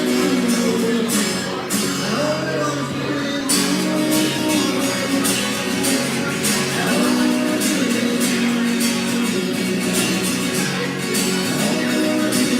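Live music: a strummed acoustic guitar with a singing voice, in a rough, poor-quality recording.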